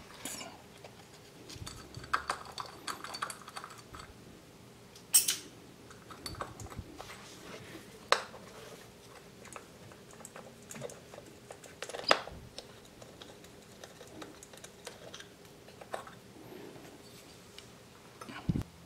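Metal hand tools and engine parts clicking and clinking during work on a Yamaha TDR250 engine's intake side, with scattered light taps and a few sharp clicks.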